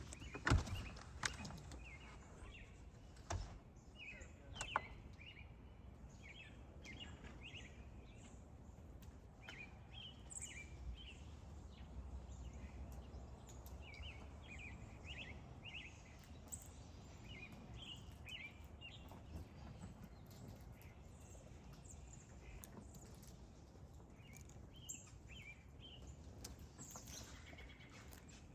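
Small birds chirping faintly, with short calls scattered throughout, over a quiet outdoor background. A few sharp knocks fall in the first five seconds.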